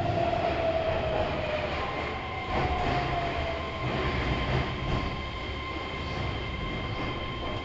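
Keihan 3000 series electric train heard from inside the car, running in a subway tunnel. The motor whine falls slowly in pitch as the train slows, over a steady rumble of the wheels. Thin steady high tones come in about two seconds in.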